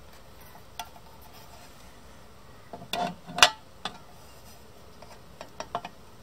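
Aluminium mess tin being set onto a Trangia stove's metal windscreen: a few light metallic clinks and knocks, the loudest about three and a half seconds in, then a quick run of small clicks near the end.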